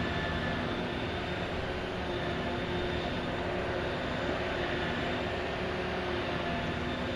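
Heavy diesel and hydraulic machinery of a backhoe dredger running steadily, an even drone with several faint steady tones that fade in and out.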